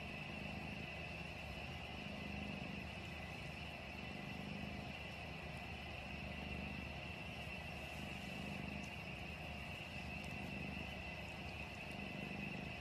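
Cat purring, a low steady rumble that swells and eases about every two seconds with its breathing, under a faint steady hiss.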